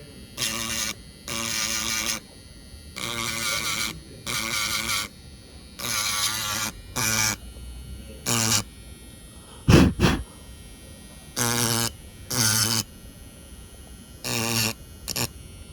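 Small handheld electric tool buzzing in short bursts, switched on and off about a dozen times, as it scrapes the circuit board's copper traces clean. A couple of sharp knocks sound about ten seconds in.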